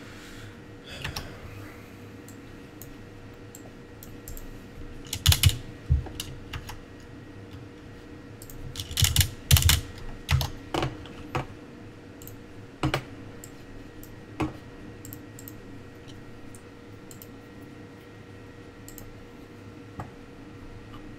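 Computer keyboard typing in short bursts, busiest about five seconds in and again from about nine to eleven seconds, with a few single key taps later on. A faint steady hum sits underneath.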